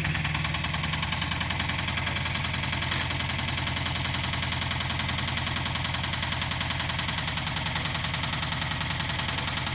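Goldoni motoagricola's engine running steadily with an even, pulsing beat. A brief sharp noise about three seconds in.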